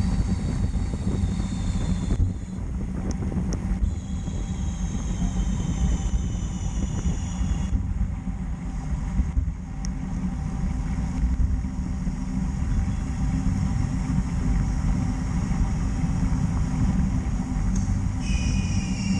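Wind buffeting a bicycle-mounted camera's microphone while riding at speed, a steady low rumble. Thin high whines that slowly fall in pitch come and go three times: briefly at the start, again for a few seconds from about four seconds in, and once more near the end.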